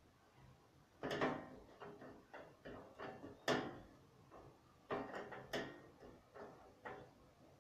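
A series of irregular knocks and bangs, about five sharp ones among softer clatter, like drawers, doors or objects being moved in a small room.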